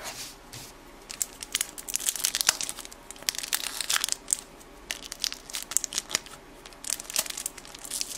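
The wrapper of a 1992-93 Topps Stadium Club card pack crinkling and tearing as it is worked open by hand, in quick irregular crackles. The pack is tricky to open.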